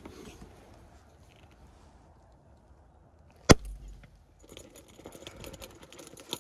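A small cast-iron grain puffer's lid released under about 12 bar of pressure: one sharp bang about three and a half seconds in, with a brief low rumble of escaping steam. Light rattling follows as the puffed rice blows into the cloth sack.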